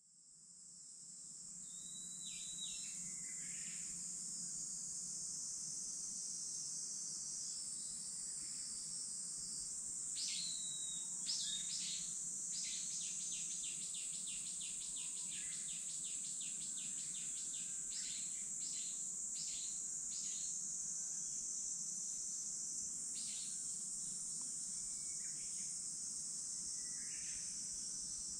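Steady high-pitched chorus of insects in summer woodland, fading in over the first two seconds. Short descending call notes sound over it, with a rapid run of repeated notes around the middle and a slower run a few seconds later.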